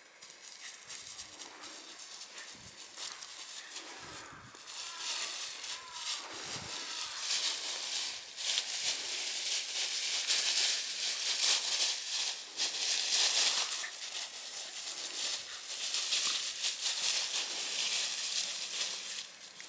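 Dry fallen leaves crunching and rustling as a Shiba Inu scrambles after a soccer ball through thick leaf litter, growing louder and denser about seven seconds in and easing off near the end.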